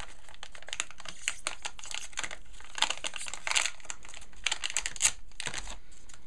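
Hard drive's sealed packaging bag being ripped open at its tear tab and crinkled by hand: a dense run of fine crackles, loudest midway and near the end.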